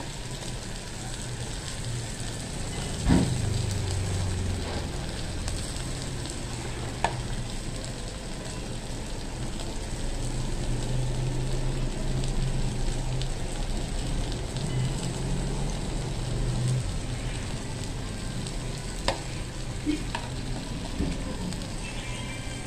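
Meat sizzling steadily on an electric grill pan, with a few sharp clicks as it is cut with kitchen scissors and handled with chopsticks; the loudest click comes about three seconds in.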